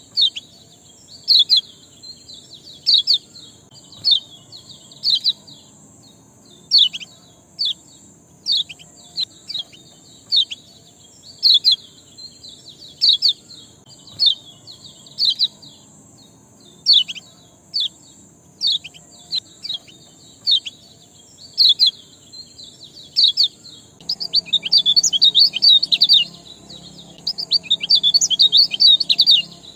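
A bird's sharp 'ciak' chirps, each a quick downward sweep, repeated about once every second or two and breaking into a rapid flurry of chirps about 24 seconds in. A steady high hiss runs underneath.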